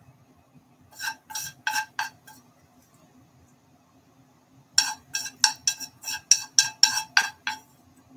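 Chopsticks knocking and scraping against a frying pan as stir-fried bean sprouts are pushed off it into a ramen bowl. There are about four clinks a second in, then a quick run of a dozen or so clinks in the second half.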